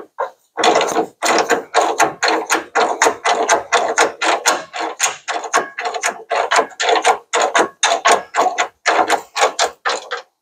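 Hand ratchet wrench clicking in quick, even strokes, about three or four a second, as it runs down a truck bed mounting bolt.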